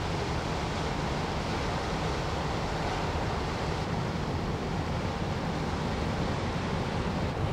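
Container ship passing close by: a steady rush of water from its bow wave along the hull, over a low, even rumble.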